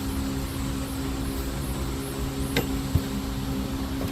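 A steady mechanical hum at a fixed pitch, with two faint clicks a little past the middle.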